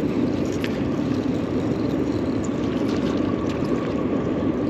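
Steady rushing noise of water around a bass boat, with a few faint clicks.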